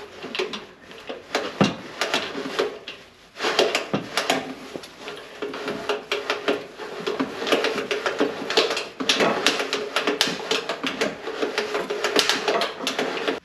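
Plier-handled chain exhaust cutter being squeezed and rocked back and forth around a car's exhaust pipe, its cutting wheels biting into the metal: rapid metallic clicking and scraping. After a short lull about three seconds in, a steady ringing note runs under the clicking.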